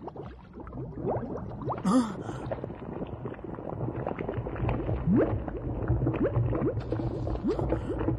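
Cartoon sound effect of swamp water bubbling and gurgling: many quick bubble pops over a low rumble, growing louder over the first second or so, with a louder pop about two seconds in.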